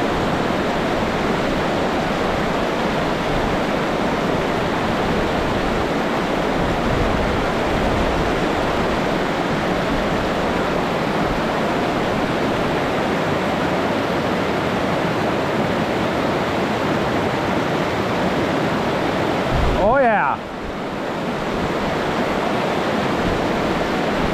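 Fast river rapids rushing steadily over rocks and around a wading angler's legs. About twenty seconds in, a brief wavering tone sounds and the level drops for a moment.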